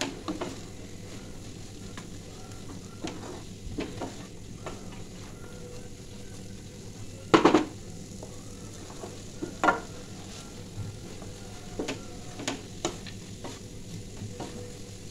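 Wooden spatula stirring and scraping vermicelli in an aluminium kadai, with scattered knocks against the pan, the loudest about seven seconds in and another near ten seconds. A steady sizzle from the pan runs underneath as the vermicelli cooks on a low flame and soaks up the water.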